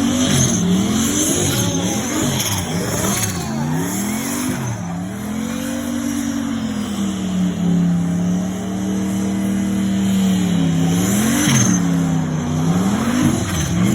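Turbocharged car engine revved in quick blips, then held at a steady rev for a few seconds, then blipped again. An airy turbo whoosh and flutter comes in as the revs drop, the sneeze-like sound of the turbo.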